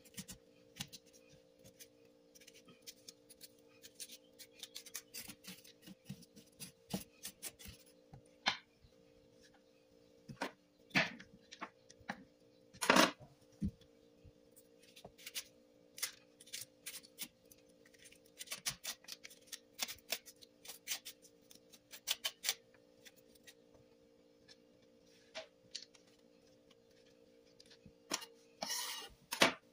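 Seeds and pith being scraped out of halved bitter gourd with a spoon and fingers: scattered scrapes, clicks and light knocks on a plastic cutting board, over a faint steady hum.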